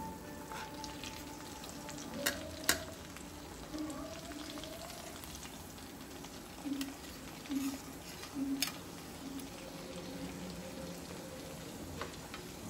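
Food sizzling in a pan as it is stirred, with three sharp clinks of the spoon against the pan.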